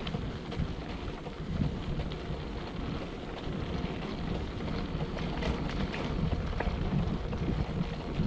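Wind buffeting the microphone of a moving bike rider, a steady rumbling rush with a few faint clicks and rattles.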